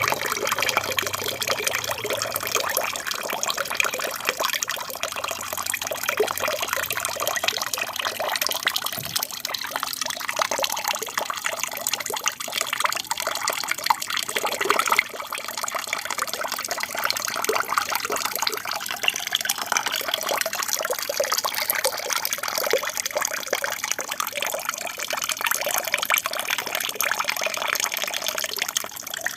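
Water trickling and splashing steadily from a small aquarium waterfall.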